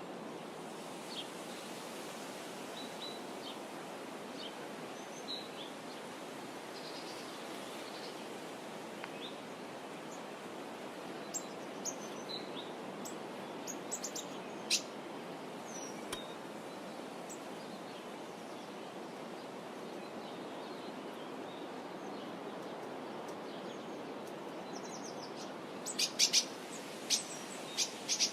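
Scattered short bird chirps over a steady rushing hiss, with a cluster of louder sharp clicks near the end.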